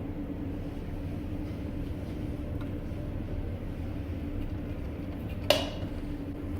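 Steady low hum with a faint held tone, and one sharp click about five and a half seconds in.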